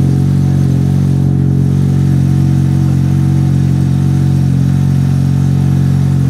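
Turbocharged Mazda RX-7 FD's 13B two-rotor Wankel rotary engine idling steadily.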